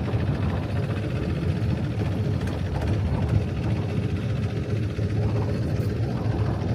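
Thai longtail boat's engine running with a steady low rumble.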